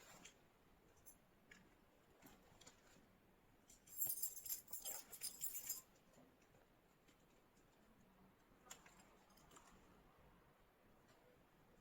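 Near silence, broken about four seconds in by nearly two seconds of quick, light clicking and rattling of small objects being handled. A couple of faint ticks come later.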